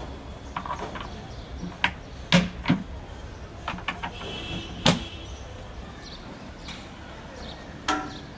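Hard plastic knocking and clicking as a spin-mop bucket is handled and its small wheels pressed into the base: a string of irregular sharp knocks, the loudest about two and a half and five seconds in, and one more near the end.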